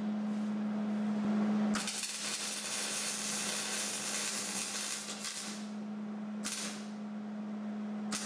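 Arc welding on a steel truck frame: short stitch-weld beads crackling and sizzling over a steady low hum. One bead runs for about three seconds starting near two seconds in, a brief burst comes about six and a half seconds in, and another bead starts right at the end.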